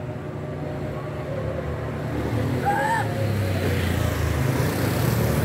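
A car approaching on the road, its engine rumble and tyre noise growing steadily louder through the second half.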